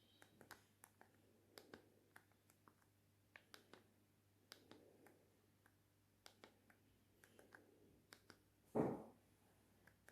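Faint, irregular clicks of the Nokia 6030's keypad buttons being pressed one after another, with a single soft thump about nine seconds in.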